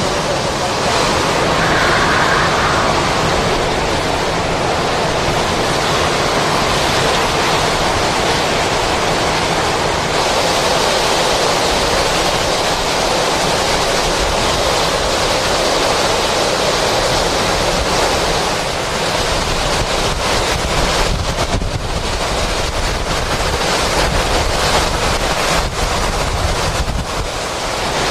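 Hurricane-force wind with rain, a loud continuous rushing noise, with gusts coming and going more unevenly in the second half.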